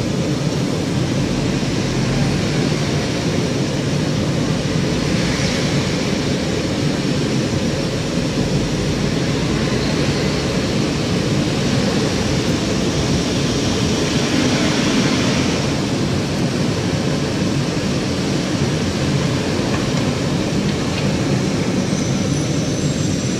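Steady low rumble and hiss inside a tram, heard through its rain-streaked windows, with traffic passing on the wet street outside. The hiss swells briefly twice, about five and fourteen seconds in.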